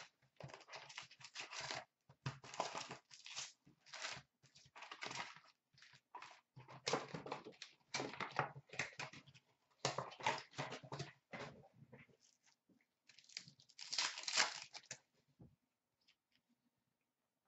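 Foil hockey card packs being torn open, with wrappers crinkling and cards being handled, in a string of irregular rustling bursts that fall quiet near the end.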